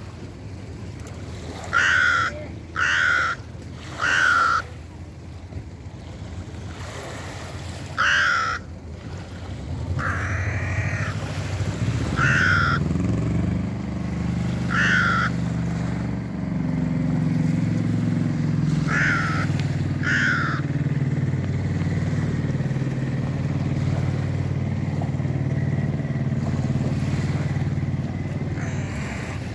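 Hooded crow cawing about nine times, three in quick succession early and then singly or in pairs. A low, steady engine drone comes in about ten seconds in and holds under the calls.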